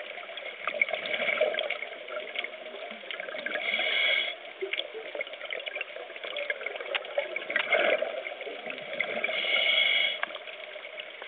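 Scuba diver's regulator breathing and bubbles heard underwater, swelling twice, about four seconds in and again near ten seconds, over a steady crackle.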